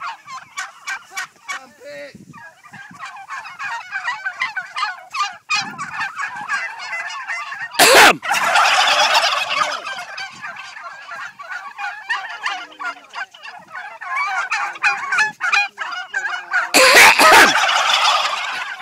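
A flock of domestic turkeys gobbling together in a dense chorus. Twice, about eight seconds in and again near the end, a person's short cough is followed at once by a loud burst of gobbling from the whole flock answering it.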